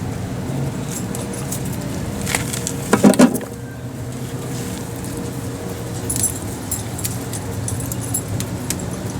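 Gooseberries being picked by hand into a bucket: small light clicks and rattles of berries and branches, with one louder, brief pitched sound about three seconds in.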